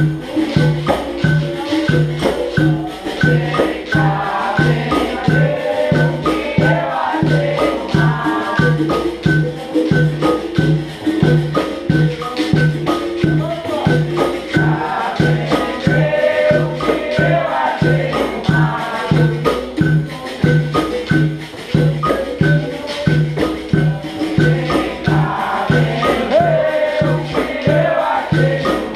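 Capoeira angola bateria playing: berimbaus, pandeiros and an atabaque drum keep a steady pulsing rhythm with jingles, under a group of voices singing.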